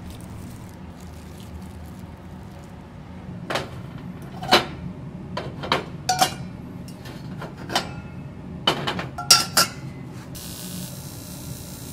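Stainless-steel lids clinking and clanking as they are set onto stone rice pots on a multi-burner cooker: about a dozen sharp metallic clinks with a short ring, starting about three and a half seconds in, over a steady low hum. A hiss starts near the end.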